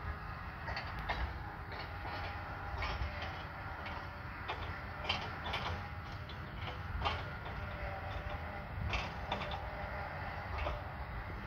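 Silage-harvesting machinery running: a steady low engine drone from tractors and a self-propelled forage harvester, with irregular sharp clicks and rattles over it.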